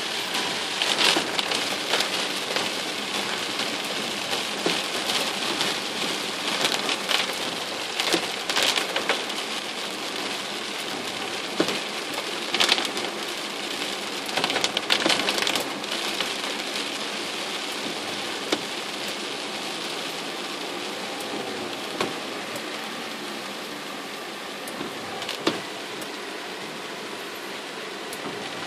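Rain drumming on a car's roof and windshield, heard inside the cabin. It is a steady patter with a few louder single drop hits.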